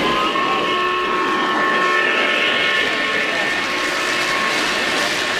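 O-gauge model trains rolling past on three-rail track, a steady rumble of wheels on the rails, with a few steady high tones held over the first three seconds or so, amid crowd chatter.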